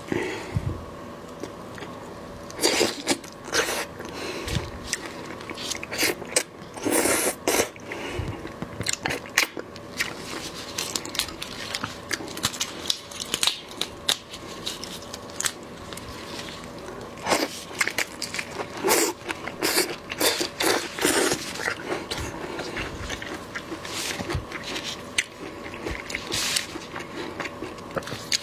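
Lobster shell being cracked and pulled apart by hands in plastic gloves, giving irregular sharp cracks and crunches, some in quick clusters.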